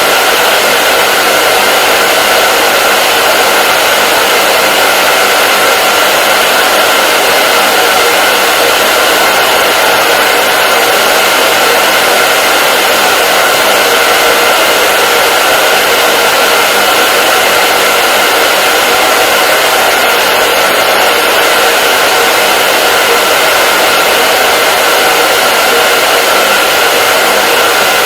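Hair dryer blowing steadily and loudly: an even, unbroken rush of air and motor noise with a steady whine running through it.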